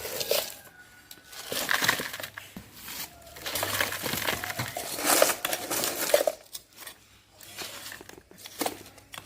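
Soil being poured into a bucket, in several irregular noisy bursts with short quiet gaps between.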